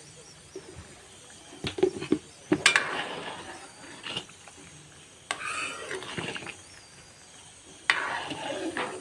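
A metal spoon stirring a watery chicken stew in a metal wok: several sharp clinks against the pan about two seconds in, then scraping and stirring, with more knocks and scraping about five and eight seconds in.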